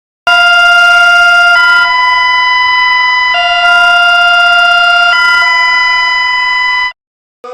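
Emergency alert alarm tone: a loud, steady chord of several pitches that switches back and forth between two chords about every two seconds. It cuts off suddenly near the end.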